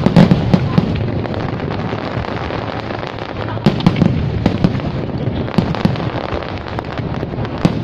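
Fireworks exploding in repeated clusters of sharp bangs, at the start, around the middle and near the end, over a steady noisy background.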